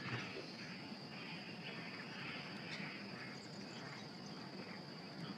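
Faint chorus of crickets and other insects: a steady high trill, with a lower buzz that comes and goes in pulses about twice a second.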